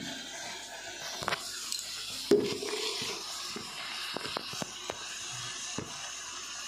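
Knocks, taps and rubbing of hands handling a smartphone right at its microphone, with one sharp knock about two seconds in and a run of small clicks a little past the middle, over a steady hiss.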